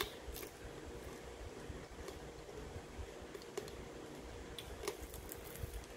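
Eating by hand with the mouth close to the microphone: scattered small clicks and smacks of chewing, lip smacking and finger licking, a few seconds apart, over a faint steady hum.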